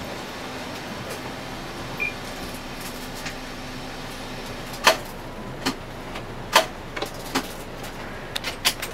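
Inside a Hino Selega HD coach: steady cabin noise with a low hum that drops out about halfway through, followed by a run of irregular sharp clicks and knocks.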